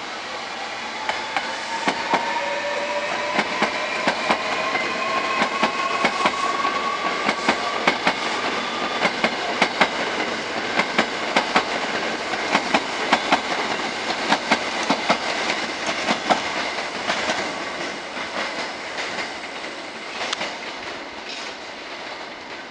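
Hankyu 1300 series electric train departing, its Toyo Denki VVVF inverter traction motors whining in several tones that climb steadily in pitch over the first nine seconds as it accelerates. Wheels clatter rhythmically over rail joints and points as the cars pass, and the sound fades near the end as the train pulls away.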